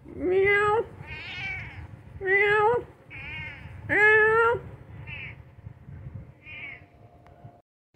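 A domestic cat and a person imitating it trading meows back and forth. Three loud meows, each rising in pitch and then held, alternate with softer meows, and the last ones are fainter.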